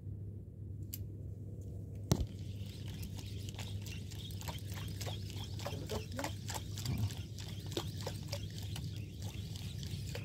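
A spinning reel being worked by hand to jig a micro jig: a sharp click about two seconds in, then a run of quick, irregular clicks and ticks as the reel is cranked in short jerks, over a steady low hum.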